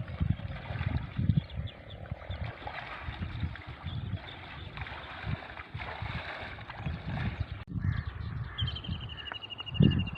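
Outdoor pond-side ambience with irregular low gusts of wind buffeting the microphone. Near the end, a bird gives a rapid chattering call.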